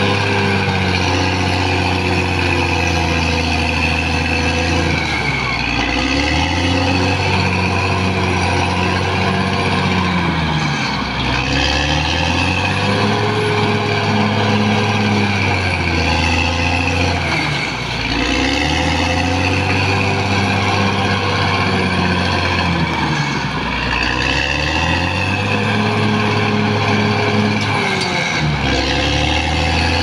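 Caterpillar D6R XL bulldozer's diesel engine running hard as the machine clears ground. Its note sags and comes back up roughly every six seconds.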